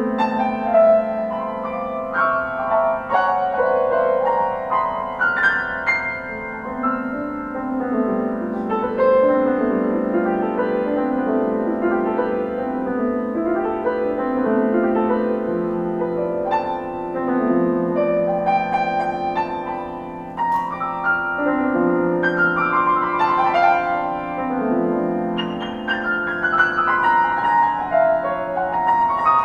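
Solo piano playing sustained chords with rising and falling runs of notes.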